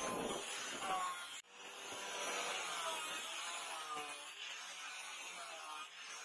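Handheld electric angle grinder (Lepon) with a grinding disc running against a steel katana blade, grinding along its edge. Steady motor whine and grinding hiss, broken off briefly about a second and a half in.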